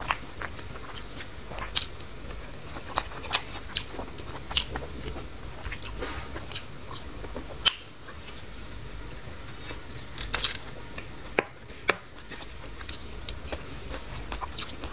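Close-miked chewing of a mouthful of green peas cooked with taro leaves, with irregular sharp mouth clicks and smacks and a few louder clicks.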